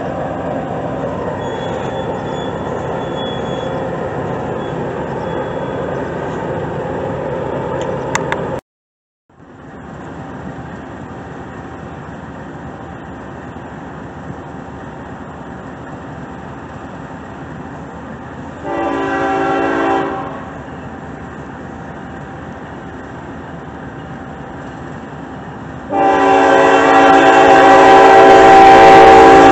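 Freight train with autorack cars rolling past, a steady rumble of wheels on rail, broken by a short dropout about nine seconds in. A locomotive's multi-note air horn then sounds a short blast around nineteen seconds in, and a long, louder blast from about twenty-six seconds in as a second train approaches on the other track.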